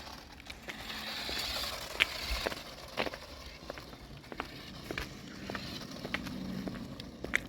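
Footsteps on pavement, sharp clicks about twice a second, over a light hiss of outdoor street noise.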